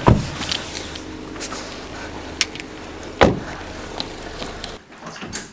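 Car doors shutting: two thuds about three seconds apart, over a low steady hum from a car and scattered small clicks.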